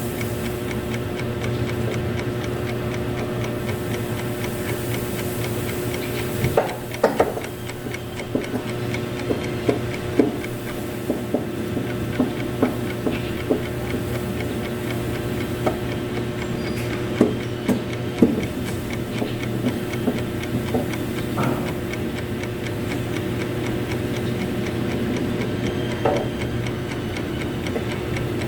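A steady hum with a fast, regular ticking throughout, and scattered sharp clicks and knocks of cabinet parts being handled and fitted together, most of them from about seven to twenty-two seconds in and one more near the end.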